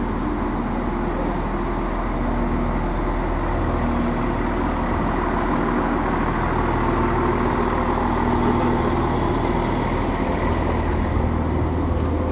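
Class 170 Turbostar diesel multiple unit's underfloor diesel engines idling at a standstill: a steady low hum with a constant engine tone, growing a little louder in the second half.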